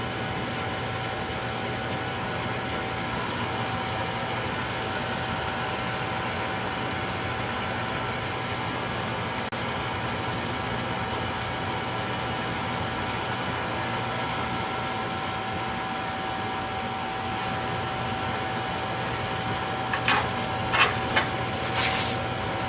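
Beckett oil burner running steadily: a broad rush from the burner with a steady whine at one pitch over it, which the technician takes for a bad fuel pump. A few short knocks near the end.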